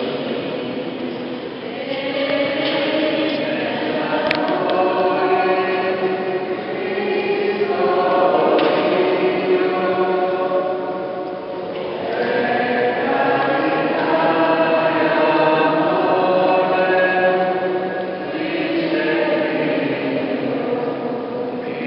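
Many voices singing together at a Catholic mass, in phrases a few seconds long with short breaks between them.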